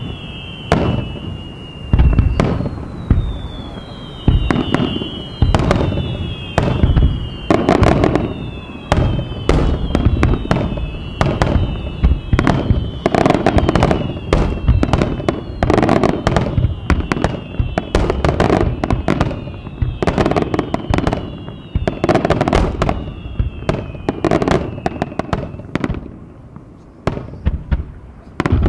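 Fireworks display: a dense barrage of shell bursts and crackling reports, with a whistling shell about once a second, each whistle falling in pitch. The barrage eases briefly near the end before the bursts pick up again.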